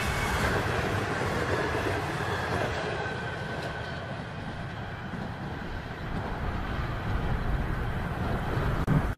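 Train running along the track: a steady rumble and rushing noise that eases slightly midway and builds again near the end.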